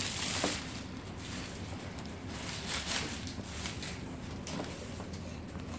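Faint rustling and a few light knocks as a cardboard collectible box with plastic wrap is handled and turned, over a steady hiss.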